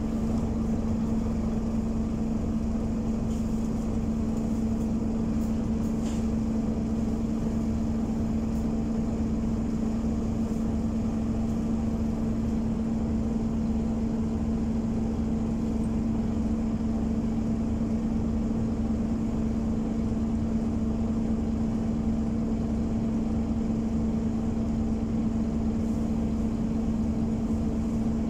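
Scania OmniCity diesel city bus idling at a standstill, heard from inside the passenger saloon, with its engine cooling fan running and giving a loud, steady hum over the low engine rumble.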